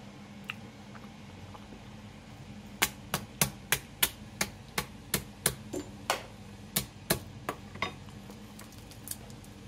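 A run of about fifteen sharp knocks, roughly three a second, starting about three seconds in and stopping near eight seconds, over a faint steady low hum.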